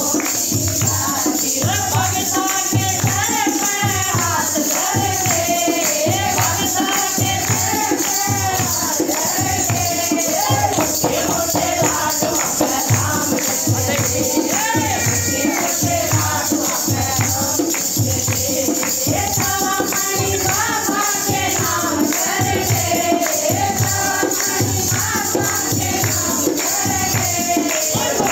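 Women singing a Haryanvi devotional folk song over a steady beat, with jingling percussion.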